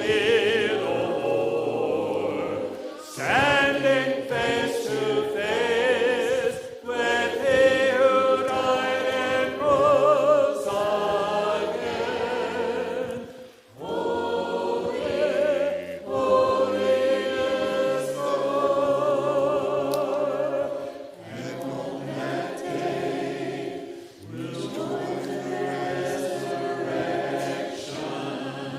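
A choir singing, in long held phrases with short breaks between them.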